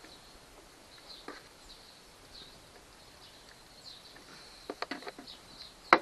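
Faint, repeated bird chirps, then a few sharp clicks and one loud click near the end as the A/C charging hose's blue quick coupler is handled at the port.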